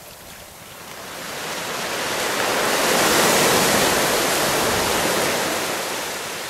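Surf from a wave washing up a sandy beach: the rush swells for about two seconds, peaks a little past the middle, then slowly fades.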